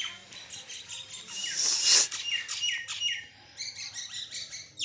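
Small birds chirping over and over in short, falling chirps. A louder hissing rush of air comes about a second and a half in.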